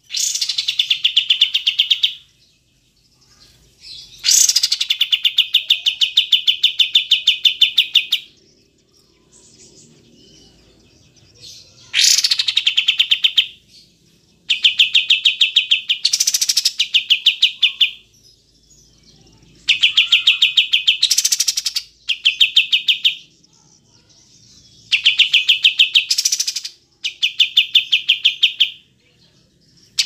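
Kapas tembak bulbul singing its rapid-fire song: bursts of fast, evenly repeated notes, each burst one to four seconds long, with short pauses between them.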